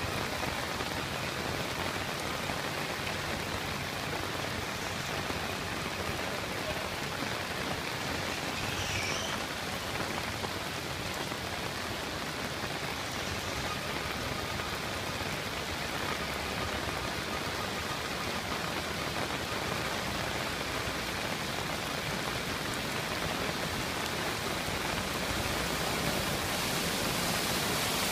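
Steady hiss of heavy rain falling, growing louder near the end.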